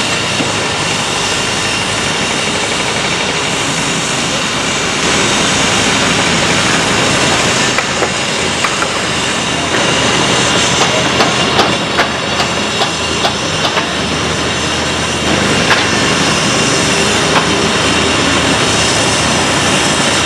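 Construction-site machinery noise: a steady diesel-machinery drone with scattered knocks and clanks in the middle, from an excavator digging and loading a site dumper.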